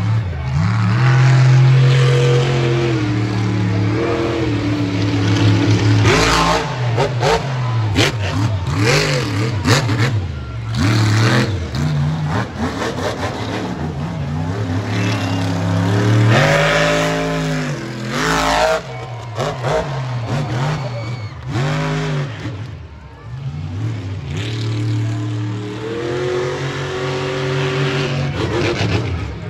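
Illuminator monster truck's engine revving hard and falling back over and over during a freestyle run, with several sharp bangs along the way.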